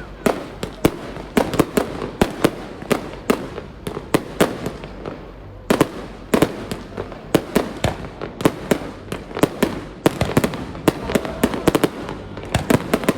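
Fireworks display: a rapid, irregular barrage of bangs from aerial shells bursting, several a second, with short lulls between volleys.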